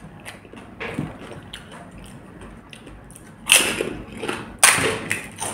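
Crisp fried pani puri shells crackling close to the microphone as they are cracked open with the fingers and eaten, with small clicks and taps, then two loud crunches about three and a half and four and a half seconds in.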